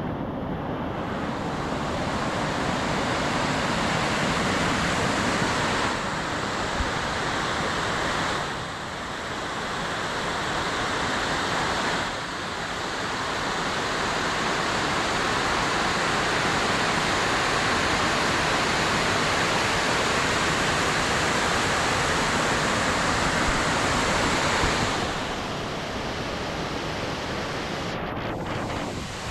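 Waterfall cascade, rushing water as a steady roar of noise that eases briefly about a third of the way in and again near the end.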